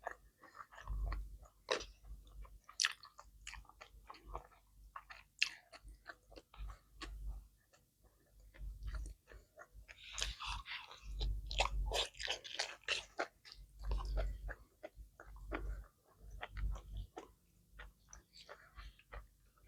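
A person chewing and biting food, with crunchy mouth sounds and clicks coming irregularly.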